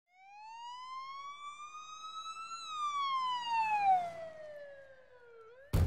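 A single police siren wail: the pitch rises slowly for about two and a half seconds, then falls for about three seconds, turning briefly upward just before it cuts off.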